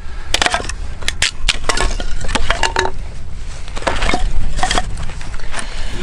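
Firewood being split into kindling with a knife: repeated sharp cracks, snaps and splintering of wood, with pieces knocking together.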